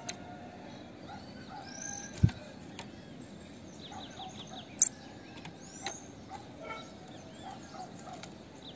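Female bananaquit calling: thin, high call notes with a quick run of short descending chirps about four seconds in. A sharp high click comes near the middle, and a low thump about two seconds in.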